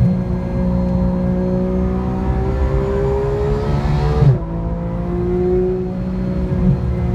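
2014 Porsche 991's flat-six engine pulling under acceleration, its pitch climbing slowly, then dropping sharply about four seconds in at an upshift before pulling steadily again, heard from inside the cabin.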